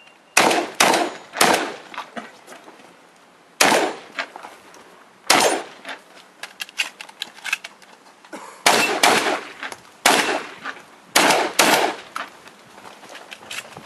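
Shotgun fired in a fast practical-shooting stage run: about ten loud shots, three in quick succession at the start, then spaced singles and quick pairs, with lighter clicks and knocks in the gaps between them.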